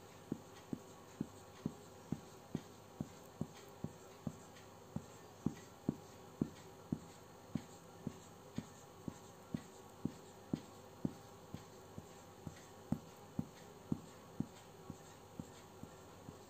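Marker pen writing a run of zeros on paper, a short soft tap with each one, about two a second at an even pace.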